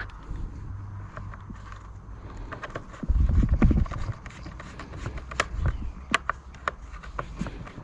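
Scattered sharp clicks and light knocks of small screws and the plastic blower housing being handled during reassembly, with a few heavier bumps about three seconds in.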